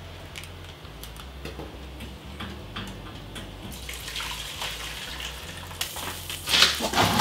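Seafood boil and its cooking liquid being tipped from a pan into a cooking pot: a wet pouring and splashing sound with a few light clicks, growing louder near the end.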